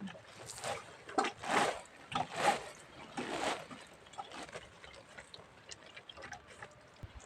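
Water splashing and sloshing in a string of short bursts, about one a second, that fade to faint scattered drips and clicks after about three and a half seconds.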